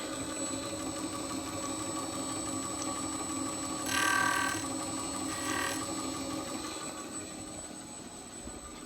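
A 1939 Koepfer wheel-cutting machine running steadily with a milling attachment as it cuts a ratchet wheel into hardened steel, with two short high ringing sounds about four and five and a half seconds in. The machine's hum fades away near the end.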